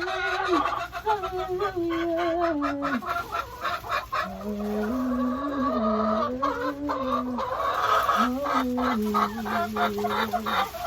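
A woman singing a slow melody in long held notes, with hens clucking around her throughout.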